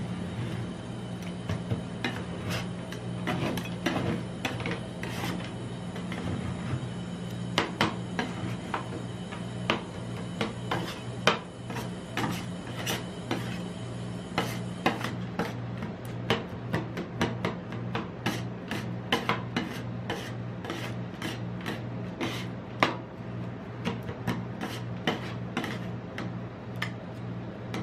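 Two metal spatulas chopping and scraping chocolate-bar pieces into ice cream on the steel cold plate of a rolled-ice-cream pan. Quick irregular taps and rasping scrapes of metal on metal come faster in the second half, over a steady low hum.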